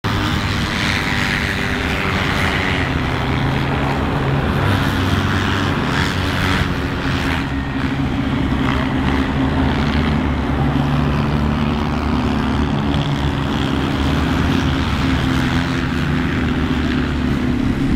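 Engines of Polaris RZR side-by-side UTVs idling at a steady pitch, with no revving.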